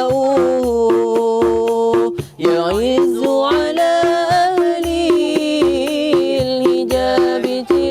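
Sholawat sung by street buskers: a voice holds long, ornamented notes without clear words, over a steady drum beat of about two strokes a second. The singing breaks off briefly about two seconds in, then goes on.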